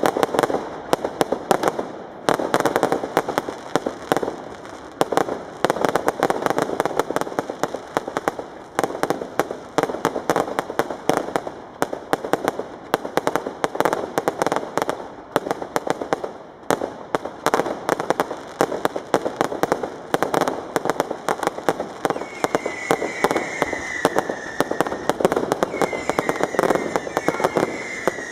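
Fireworks display: a dense, continuous string of bangs and crackling from bursting shells. From about two-thirds of the way in, several whistles sound, each falling slightly in pitch.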